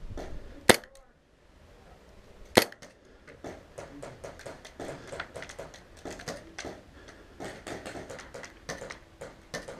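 Two sharp shots from a gas blowback airsoft pistol, a WE G19, nearly two seconds apart. They are followed by a long run of quieter, irregular clicks and crunches.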